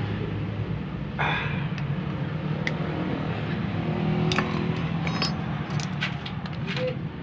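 Light metallic clicks and taps of a car starter motor's parts being handled and fitted back together by hand, bunched in the second half, with a short scrape about a second in. A steady low hum runs underneath.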